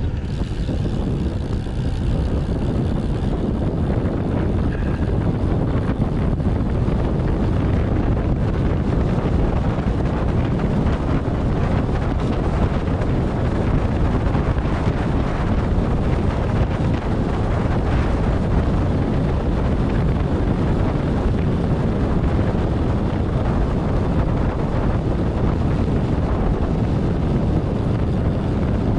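Loud, steady wind rush buffeting an action camera's microphone as a road bike descends at speed.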